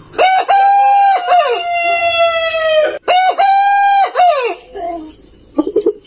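Rooster crowing twice: a long crow whose final note slowly falls in pitch, then a shorter crow about three seconds in. A few short, low calls follow near the end.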